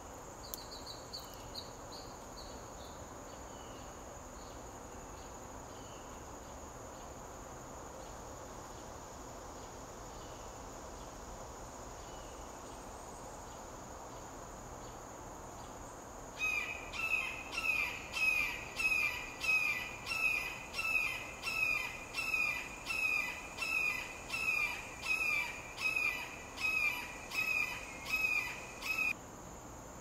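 A steady high insect trill. About halfway, a loud rhythmic pulsing call of about twenty even pulses, under two a second, begins and then cuts off suddenly near the end.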